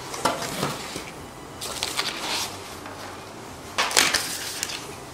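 Corrugated cardboard packing sheets being handled, scraping and rustling as they slide and are lifted off. There are a few short scrapes, a longer rustle, and the loudest scrape about four seconds in.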